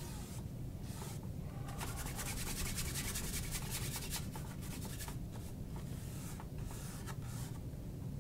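Artist's brush stroking oil paint onto canvas in a rapid run of short, quick strokes, densest from about two to five seconds in.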